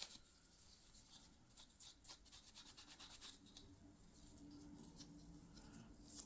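Faint, irregular strokes of hand sanding on walnut revolver grips, a light scratchy rubbing.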